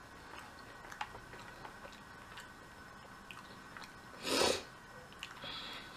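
Quiet chewing with faint mouth clicks, then a loud crunch about four seconds in as a tortilla chip is bitten.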